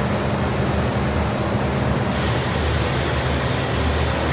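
Steady hum and air hiss from the robotic sanding cell's vacuum system, running to hold the door on the table. One low hum note stops about halfway through.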